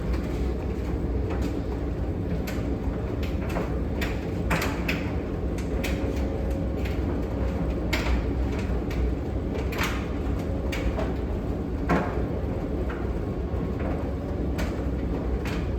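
Miele Professional PT5136 tumble dryer running on a drying program: a steady low rumble from the turning drum, with irregular clicks and knocks from the laundry tumbling inside.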